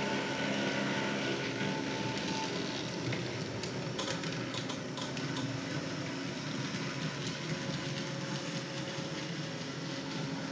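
H0-scale model tram running on its track: a steady hum and whine from its small electric motor over the rolling of metal wheels on the rails. A few sharp clicks come about four to five and a half seconds in, as the wheels pass rail joints or points.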